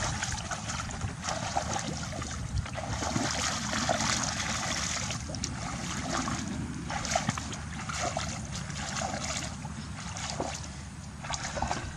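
Shallow water splashing and sloshing in irregular bursts, as when someone works through water catching fish by hand.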